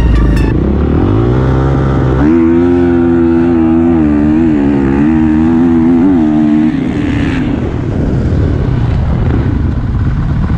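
Dirt bike engine under hard acceleration: the pitch rises for about two seconds, then holds at high revs and wavers for several seconds before giving way to rougher, noisier running.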